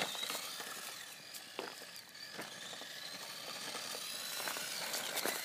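Latrax Rally RC car drifting on asphalt: its small electric motor whines, rising and falling in pitch with the throttle, over a hiss from its electrical-tape-wrapped tyres sliding on the pavement, with a few light clicks.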